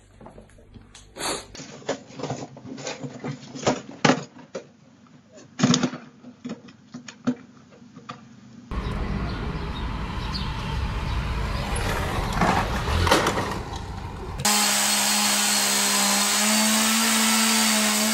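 Scattered sharp knocks and clicks, then several seconds of steady rushing noise, then a Stihl chainsaw running at steady high revs, the loudest sound, starting abruptly a few seconds before the end.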